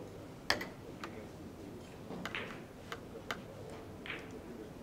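Several sharp clicks of billiard balls and cue at a carom table, the loudest about half a second in and a few more later, with short scuffing sounds between them.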